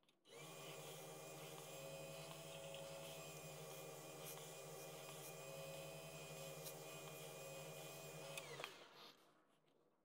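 Wood lathe motor switched on and running at steady speed, a hum with a high whine, while wax is buffed onto the spinning walnut piece with a cloth. About eight and a half seconds in it is switched off and winds down.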